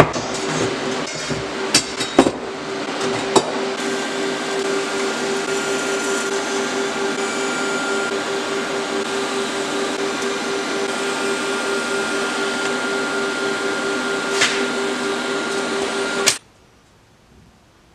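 Steel bar pieces clanking and being tapped into place for the first few seconds, then a steady TIG welding arc hiss and hum with an even pulsing tone, which cuts off abruptly near the end.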